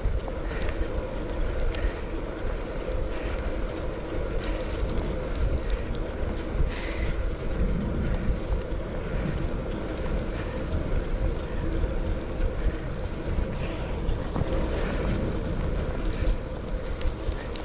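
Wind rumbling on the microphone while riding a bicycle, with a steady hiss of tyres on wet road.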